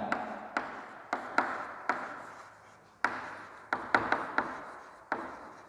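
Chalk tapping against a blackboard while words are written: about a dozen sharp taps at irregular intervals, each trailing off in a short echo.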